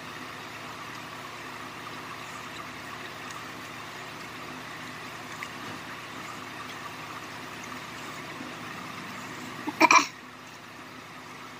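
A woman gives a short, sharp cough of three quick bursts near the end, over a steady background hum.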